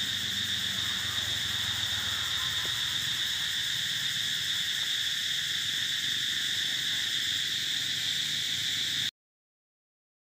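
Loud, steady chorus of insects, a continuous high droning buzz that cuts off suddenly about nine seconds in.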